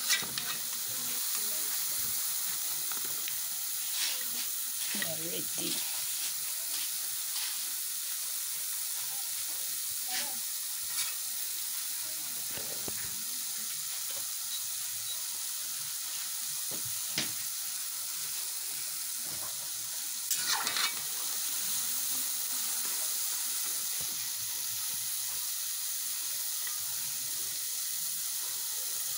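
Small pieces of dough deep-frying in hot oil in a metal pan, with a steady sizzle. A slotted spatula stirring and lifting the pieces adds occasional scrapes and knocks, most of them just after twenty seconds in.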